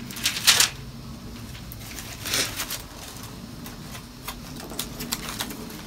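Bible pages rustling as they are turned: a couple of short rustles, the strongest about two seconds in, with light paper taps and clicks in between.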